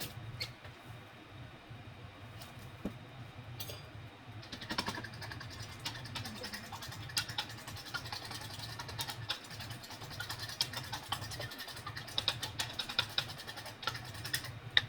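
Cooking sounds: from about four seconds in, a dense run of quick clicks and scrapes over an even hiss, over a low steady hum.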